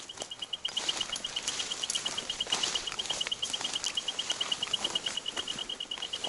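Beep Mat prospecting sensor's electronic beeper giving a rapid, even train of short high beeps, several a second, as it is towed along. Footsteps and brushing through forest undergrowth rustle and crackle underneath.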